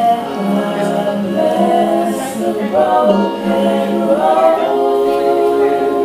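A group of voices singing together in harmony, a cappella.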